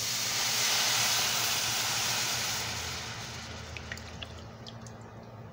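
Chicken broth poured into a hot skillet, hissing and sizzling as it hits the browned drippings left from searing pork chops, deglazing the pan. The hiss is strongest about a second in and dies away over the next few seconds into a faint simmer with a few light pops.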